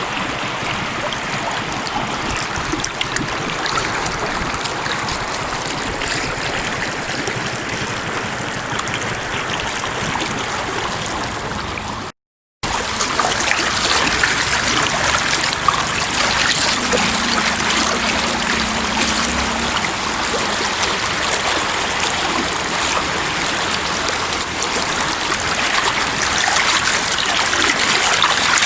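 Water of the Bhimber Nala stream flowing, a steady rush of running water. It cuts out for an instant about twelve seconds in and comes back a little louder and brighter.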